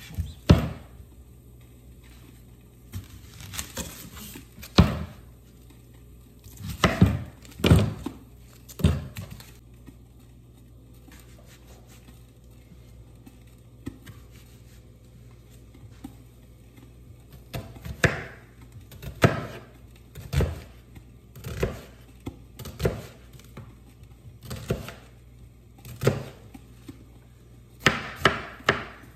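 Chef's knife chopping an onion on a plastic cutting board: separate knocks of the blade hitting the board, a cluster of them about seven seconds in, then a quiet stretch. After that the strokes come steadily about one a second, and faster near the end.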